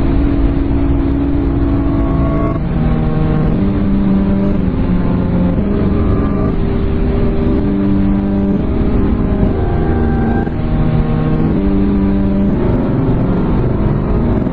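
Mock emergency alert soundtrack: a sequence of held electronic tones stepping from pitch to pitch, a new note every half second to two seconds, over a loud continuous rumble.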